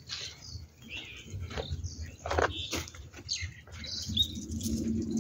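Birds chirping and calling in short, scattered notes, over the soft rustle and thud of footsteps through grass.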